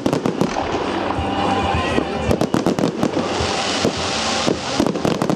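Fireworks display: aerial shells bursting in a rapid, irregular string of bangs, packed most densely about two seconds in, followed by a sustained hiss as the stars fall.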